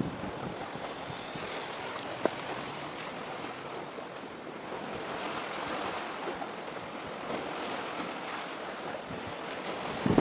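Wind buffeting the microphone over a steady wash of sea waves, with a single click about two seconds in.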